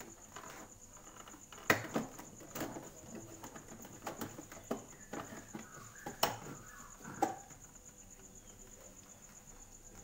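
Irregular sharp plastic clicks and knocks, about seven spread over several seconds, as the plastic lamp and control housing inside a Sharp refrigerator is pried at and handled. A faint steady high whine sits underneath.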